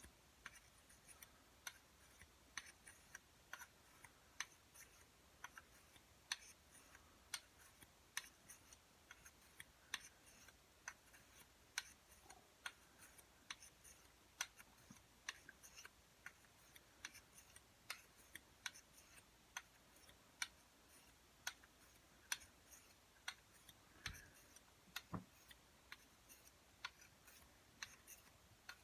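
SOCP dagger blade stroked back and forth on an oiled honing stone, each pass making a short, faint scrape-tick, about one and a half to two a second.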